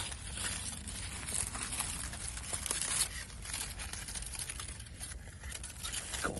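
Foil crinkling and tearing in quick, irregular crackles as it is opened around a campfire-baked jacket potato.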